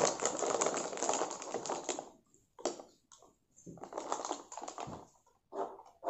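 Plastic snack packet crinkling as it is torn open and handled: a dense crackle for the first two seconds, then short broken bursts of rustling with pauses between.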